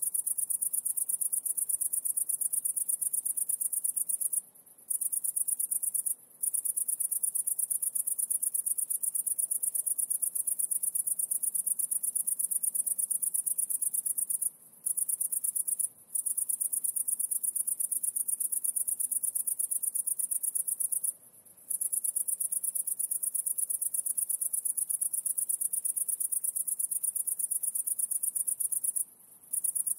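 Insect trilling: a continuous, very high-pitched rapid pulse, broken by short pauses every few seconds.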